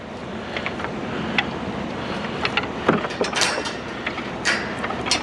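Plastic wrapping on a discarded baby crib rustling and crinkling as it is pulled open by hand, with scattered light clicks and knocks over a steady background hiss.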